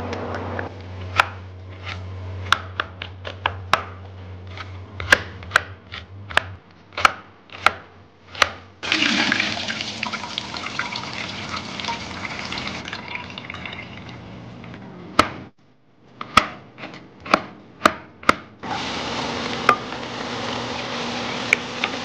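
Wooden spatula knocking against a pot while stirring boiling spaghetti. About nine seconds in, pasta water starts pouring through a metal strainer into the sink in a steady rush that lasts several seconds. After a few more knocks, chopped garlic sizzles in a pan from about nineteen seconds in.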